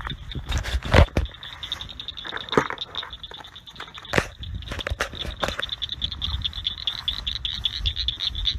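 A steady night chorus of high, rapidly pulsing trills, overlaid by several knocks and rustles of handling close to the microphone, the loudest a knock about a second in.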